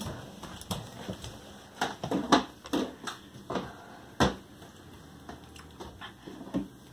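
Scattered sharp clicks and knocks from kitchen things being handled, likely a sour cream tub and plastic spoon, with the two loudest knocks about two and four seconds in.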